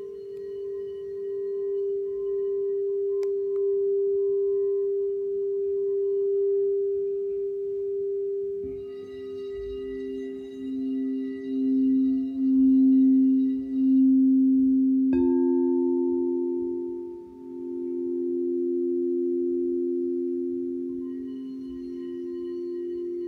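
Frosted crystal singing bowls ringing in long, overlapping tones that swell and waver as they beat against each other. A lower bowl comes in about nine seconds in, and another bowl is struck sharply with the mallet about fifteen seconds in, adding a new ringing tone.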